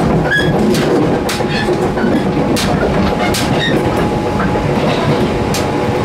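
Steady rumble of a JR 213-series electric train running, heard from inside the gangway between cars, with frequent irregular metallic clinks and brief squeaks from the overlapping checker-plate steel bridge plates shifting against each other.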